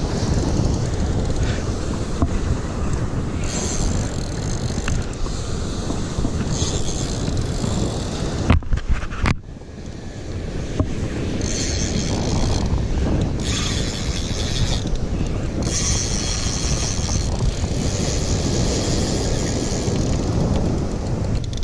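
Wind buffeting the microphone, with surf washing on the beach behind it. A few sharp knocks come about eight and a half seconds in, followed by a brief lull in the wind.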